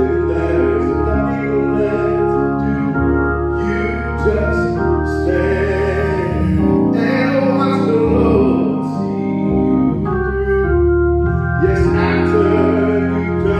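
Organ playing slow, held chords that change every second or two, as the musical selection in a church service.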